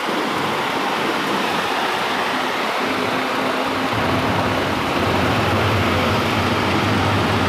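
Mobile concrete mixer machine running, with a steady rushing noise. A low engine hum comes in about three to four seconds in.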